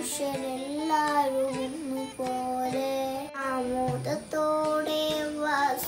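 A young boy singing solo, holding long notes in phrases with short breaks between them.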